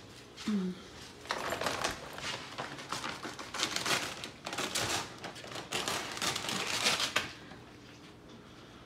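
A quick, uneven run of clattering taps and rustles starting about a second in and stopping about seven seconds in, with a short pitched squeak near the start.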